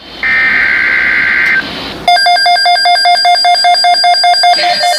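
Emergency Alert System alert for a flash flood watch: a shrill digital data burst of about a second and a half, then, about two seconds in, a loud high beeping alarm of several quick even beeps a second.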